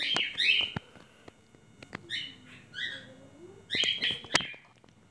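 Small birds chirping in short groups of high chirps, with a few faint clicks in between.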